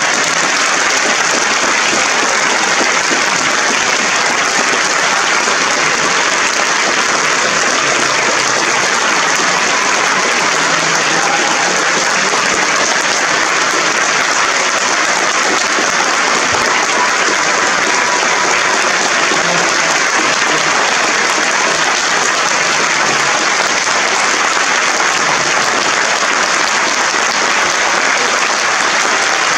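Large theatre audience applauding steadily, a dense continuous clapping that holds at an even level throughout.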